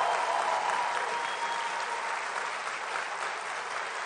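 Audience applauding, a steady dense clapping that eases off slightly as it goes on.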